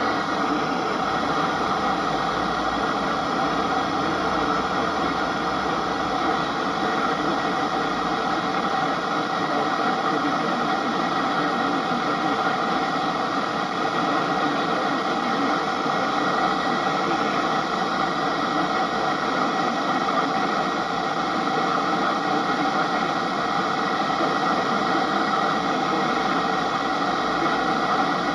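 Steady radio static hiss with faint steady hum tones under it, unchanging throughout.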